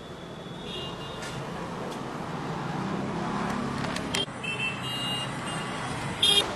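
Road traffic: vehicle engines running with a steady hum, and a few short high-pitched tones, about a second in, around four to five seconds in, and a louder one near the end.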